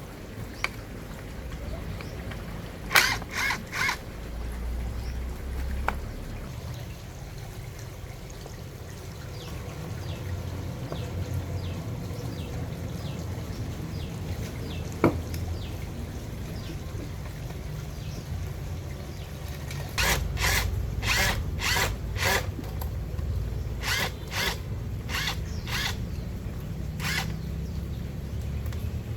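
Sharp metal knocks and clicks from tools working on a chainsaw: three close together about three seconds in, a single one about halfway, and a quick run of knocks in the last third, over a steady low rumble.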